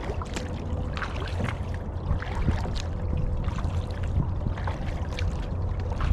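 Kayak paddling: the paddle blades dipping and water splashing and dripping in small irregular bursts, over a steady low rumble.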